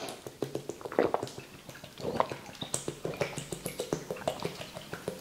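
A man drinking water from a plastic bottle: a run of gulps and swallows, with small liquid clicks.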